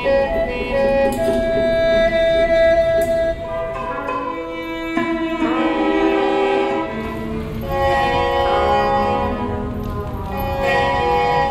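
Live experimental ensemble music with a violin and other instruments playing long held notes. The harmony changes abruptly about five seconds in.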